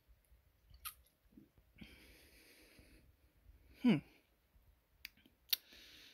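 A person's breathy exhales after a swig of bourbon, with a short vocal grunt about four seconds in that falls in pitch, and a few light clicks.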